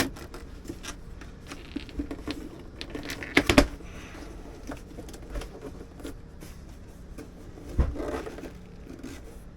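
Handling noises: light rustling and small taps as parts and packaging are moved about, with two louder knocks, one about three and a half seconds in and one near the end.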